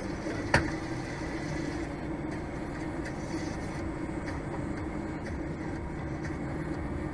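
Steady low hum of an idling truck heard from inside the cab, with one sharp click about half a second in.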